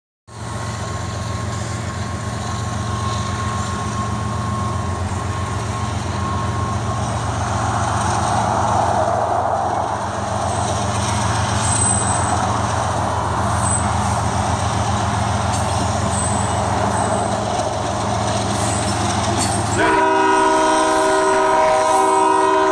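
CSX diesel freight locomotives passing close by with a steady low engine rumble. About twenty seconds in, a train horn sounds a long chord of several tones.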